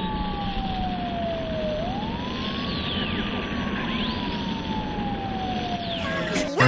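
A siren wailing slowly: one tone glides down, swoops back up about two seconds in, then glides down again, over a steady hiss of street noise.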